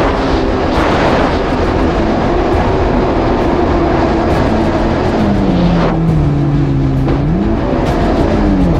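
Yamaha GP1800R SVHO jet ski's supercharged engine running at low speed under a steady rushing noise. Its pitch drops about five seconds in, rises briefly near the end and falls again.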